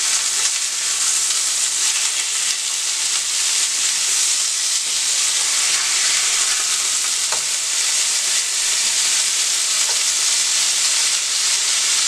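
Beef burger patties sizzling steadily in a hot frying pan as they are turned over with a plastic spatula, freshly flipped raw sides searing. A couple of faint taps sound about seven and ten seconds in.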